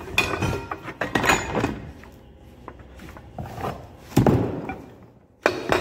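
Knocks and clunks of the sheet-metal parts of a lime powder marking machine being handled and fitted together, several separate strikes with the loudest about four seconds in. Background music comes in near the end.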